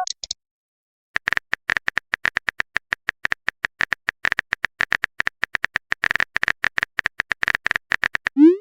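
A rapid, uneven run of short electronic clicks, all on the same high pitch, starting about a second in, like a text or typing blip sound effect.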